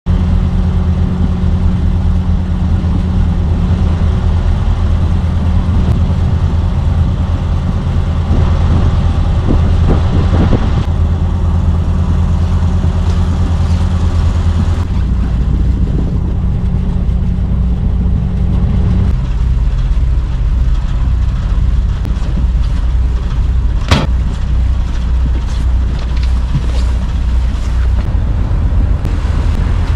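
Sailboat's inboard engine running steadily under way, its low note changing about halfway through and again a few seconds later. A single sharp knock near the end.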